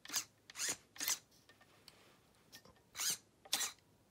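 Traxxas Rustler's steering servo whirring in short, quick bursts as it snaps the front wheels from side to side: five brief whirs, three close together in the first second or so and two more about three seconds in.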